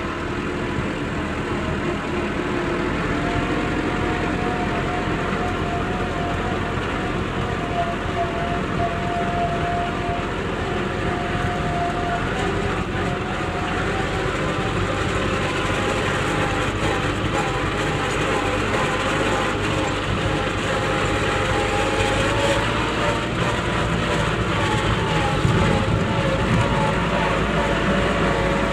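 Compact loader tractor's engine running steadily as the tractor drives along, heard close up from the driver's seat, with a constant hum and a few steady tones.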